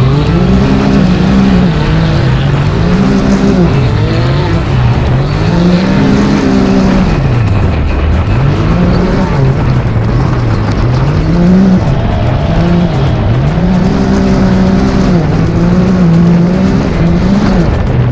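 Can-Am Maverick X3 Turbo side-by-side engines racing flat out on a dirt track, revving up and falling back over and over, about once every one to two seconds.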